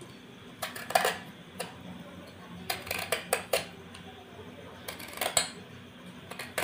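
A small blade scraping the skin off a pointed gourd (potol) in short, irregular strokes, coming in quick clusters of a few scrapes with pauses between.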